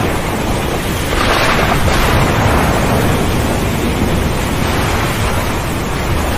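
Storm at sea: a loud, dense, steady rush of waves and wind, swelling about a second in.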